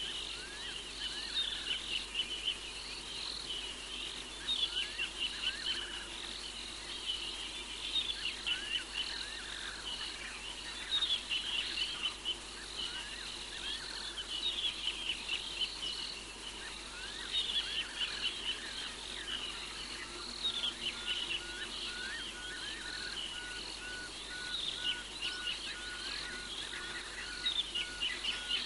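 Dense night chorus of frogs and insects: many short, high chirps overlapping without a break. From about twenty seconds in, a run of short, evenly spaced notes, about two a second, sounds lower beneath it.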